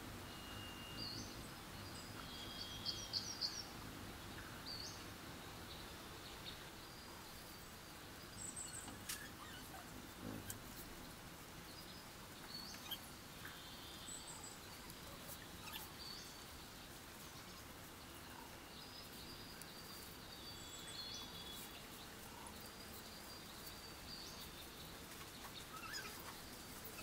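Faint outdoor background with small birds chirping now and then, a quick run of chirps about three seconds in being the loudest; occasional soft clicks and rustles of dry palm-leaf strips being handled and woven.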